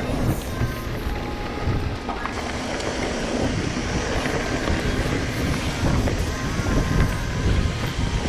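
Wind buffeting the microphone of a camera on a moving mountain bike, over the crunch and rattle of knobby tyres rolling on a gravel dirt track.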